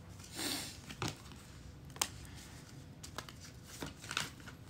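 A deck of tarot cards shuffled by hand, overhand: a soft rustle of cards sliding, then a few short crisp card clicks spread a second or so apart.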